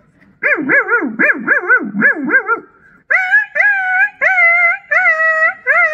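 A young man imitating animal calls with his voice into a handheld microphone: a quick run of about eight wobbling calls, then after a short pause about five higher, drawn-out calls that bend in pitch.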